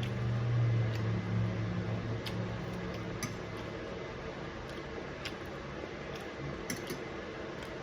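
Scattered light clicks and ticks of cutlery against a plate during a meal, over a steady background hum. A low droning hum is loudest during the first three seconds, then fades.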